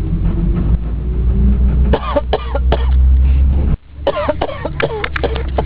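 A person coughing in two short fits, about two seconds in and again about four seconds in, over the steady low rumble of a moving bus.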